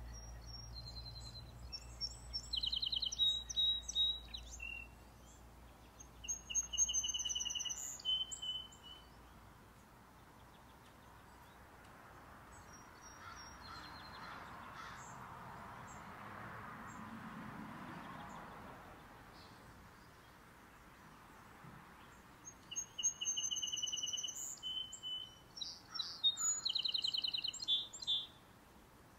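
A songbird singing: three bouts of sharp high notes and trills, a few seconds each, at the start, about six seconds in and again near the end. Between the second and third bouts a faint rushing sound swells and fades.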